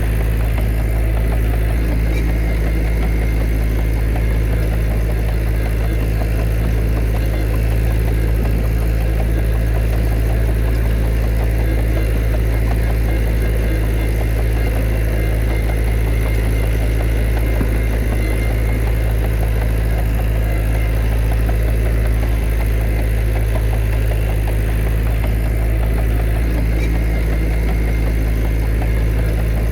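Heavy diesel engine of earthmoving machinery running steadily, with a deep, even hum that does not change.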